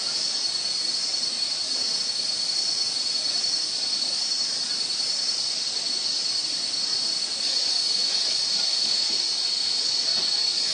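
Cicadas droning: a steady, shrill, high-pitched hiss with one held tone, slightly louder after about seven seconds.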